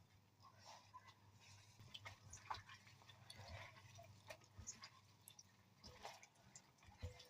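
Faint, scattered small clicks and soft taps of kitchen utensils and food being handled, over a low steady hum.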